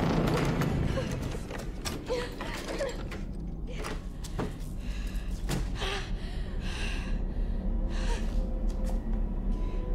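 A woman's frightened, gasping breaths, several in the second half, over a steady low rumble, with a few faint creaks in the first seconds.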